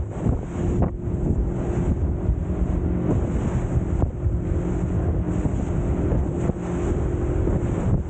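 Speedboat running at speed: a steady engine drone under heavy wind buffeting on the microphone and rushing water, with a few sudden thumps about a second in, halfway through and near the end.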